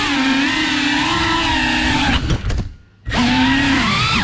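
FPV quadcopter's brushless motors and propellers whining, the pitch rising and falling with throttle. A little over two seconds in, the throttle is chopped and the whine drops away for about half a second, then the motors spin back up.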